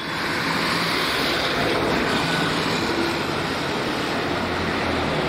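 Road traffic on a main road: a steady rush of passing vehicles with a faint engine hum underneath.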